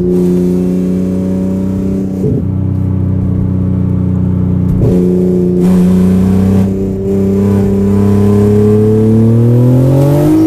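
The turbocharged B58 inline-six of a tuned BMW M240i xDrive, heard from inside the cabin, holding a steady cruise and then accelerating from about halfway, its pitch rising steadily as it pulls.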